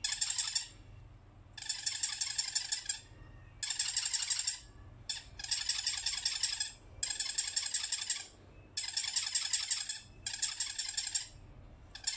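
Squeaks from an elephant soft toy: a regular run of high, buzzy squeaks, each about a second long, coming about every second and a half with short pauses between.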